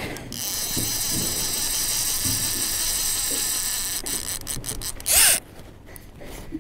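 Fishing reel buzzing steadily for about four seconds while a hooked salmon is being played, then stopping; a few clicks follow and a short loud noise comes about five seconds in.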